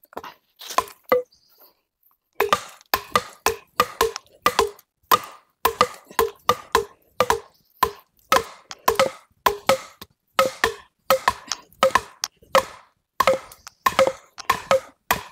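A hand tool striking an upright wooden shelter post again and again: a few blows, a short pause, then a steady run of sharp knocks about two a second.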